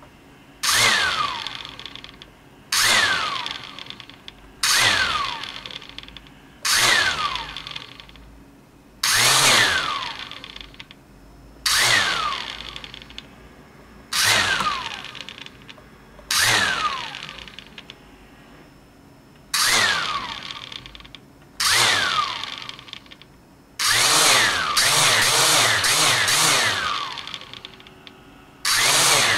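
XK X251 drone's brushless motors blipped up to speed about a dozen times, each burst starting suddenly and dying away with a falling whine as the motors spin down; near the end one throttle burst is held for about three seconds. The drone is run to show a bad motor.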